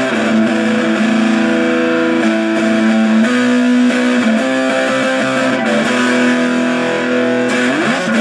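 Electric guitar played through a small homemade 9-volt battery-powered amplifier built into an ammo can, with no effects pedal. Held chords change every second or so, and a note slides up near the end.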